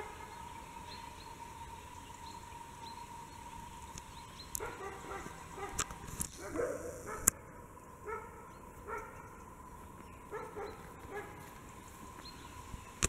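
Dog barking: a run of short barks starting about four seconds in, roughly one every half second to second, with a few gaps.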